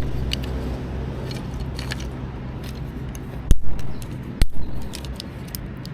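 Small dry sticks being handled and set down for a fire, with light clicks and scrapes and two sharp cracks about a second apart near the middle. A low steady hum runs underneath.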